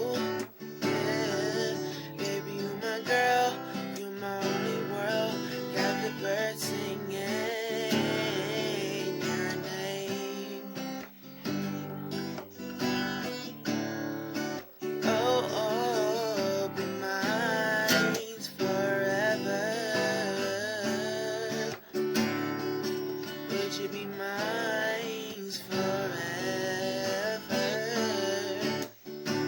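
A song: strummed acoustic guitar under a wavering sung melody.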